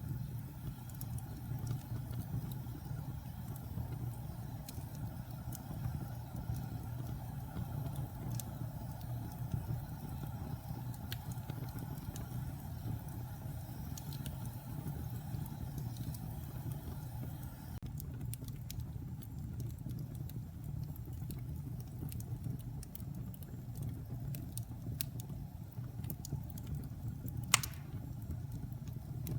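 Log fire burning in a fireplace: a steady low rumble of flames with scattered crackles and pops, and one sharper, louder pop near the end.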